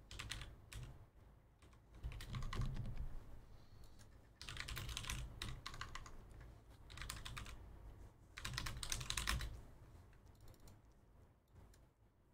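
Computer keyboard typing in several short runs of rapid keystrokes, with pauses between them.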